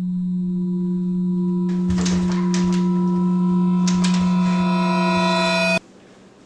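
A low, steady drone tone swelling in loudness, a horror-film sound effect. About two seconds in, higher ringing tones and scattered clicks and knocks join it. The whole drone cuts off suddenly near the end.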